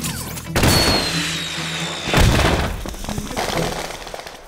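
Cartoon distress flare fired into the sky: a whoosh with a high whistle falling slightly in pitch, then a boom as it bursts about two seconds in, fading away.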